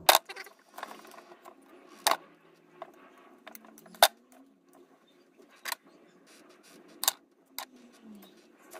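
Sharp clicks and knocks of hard parts and tools being handled while something is unfastened on the drill's power cable, about six in all, the loudest near the start and at about two and four seconds.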